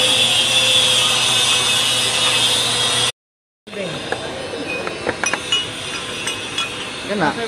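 Steady mechanical hum and hiss, broken by a short dropout about three seconds in. After it come scattered light metallic clicks and clinks as metal parts are handled, with a brief voice near the end.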